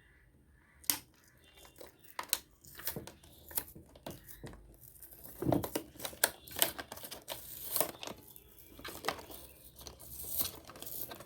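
A sticker being peeled off the plastic casing of a mini tower speaker: an irregular run of scratchy peeling and crackling sounds with sharp clicks, starting about a second in.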